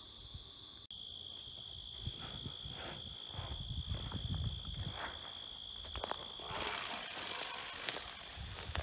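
Field insects keeping up a steady high-pitched drone. Near the end, rustling footsteps through leafy crop plants rise over it for about two seconds.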